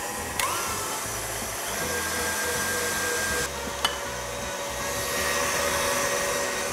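Stand mixer running steadily, its balloon whisk whipping Swiss meringue (heated egg whites and sugar) in a steel bowl: the stage of beating it until it is fluffy and has cooled.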